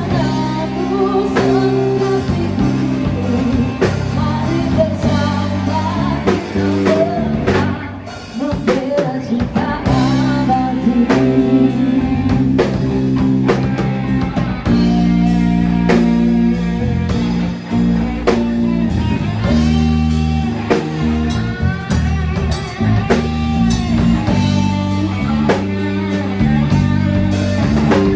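Live band playing through PA speakers: electric guitar, bass guitar and drum kit, with a woman singing into a microphone.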